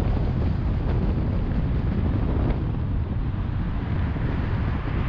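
Steady road and wind noise from a moving car, a low rumble with no distinct events.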